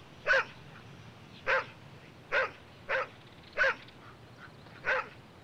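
A collie-type dog barking: six short, sharp barks at uneven intervals.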